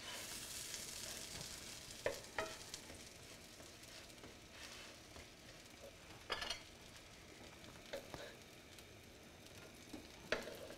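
Minced garlic and lemon slices sizzling in olive oil in a nonstick frying pan, the hiss strongest in the first couple of seconds and then fading. A wooden spatula stirs and knocks against the pan several times.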